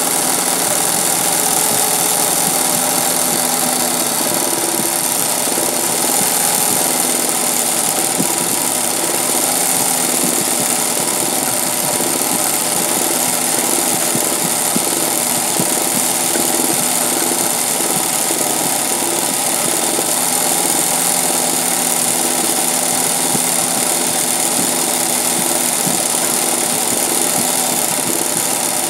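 A 20U industrial zig-zag sewing machine running steadily, stitching free-motion satin-stitch embroidery through hooped fabric: the needle's rapid, even clatter over a steady motor hum.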